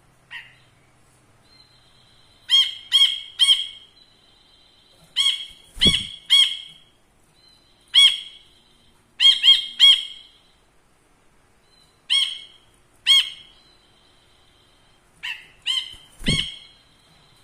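Caged brinji kelabu bulbul calling: loud, sharp, ringing notes in quick runs of two or three, repeated every couple of seconds. Two dull thumps, about six seconds in and near the end, are the bird hopping about the cage.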